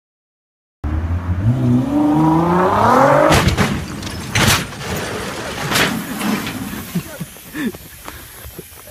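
Nissan Skyline GT-R engine revving hard, rising in pitch for about two seconds, then a crash: several loud impacts over about two and a half seconds as the car hits something, followed by quieter scattered sounds.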